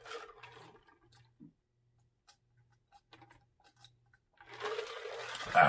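A person drinking from a glass mug: faint small swallowing clicks, then near the end a loud breathy exhale after the drink.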